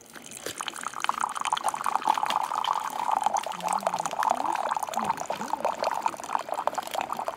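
Water pouring steadily.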